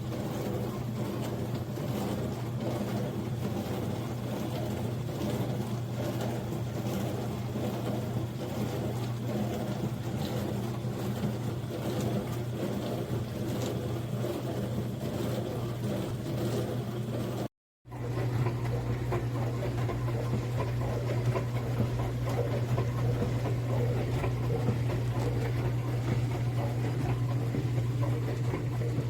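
Countertop dishwasher running a wash cycle: a steady low pump-motor hum with water spraying and sloshing inside the tub. The sound cuts out for a moment about two-thirds of the way through, then carries on slightly louder.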